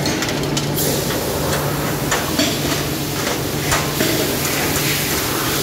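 Steady low hum of a die-casting machine running, with scattered sharp metallic clinks and knocks as cast parts and hand tools are handled on a steel table. A high hiss sets in about a second in.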